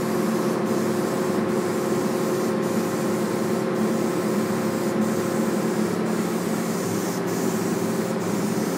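Steady hiss of paint being sprayed, with a steady hum underneath.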